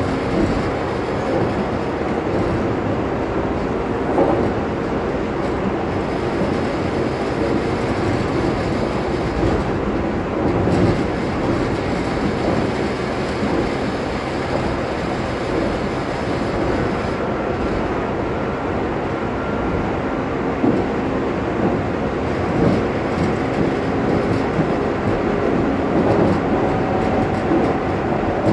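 Train running steadily along the line, heard from on board: continuous running noise with a few louder knocks from the wheels over rail joints.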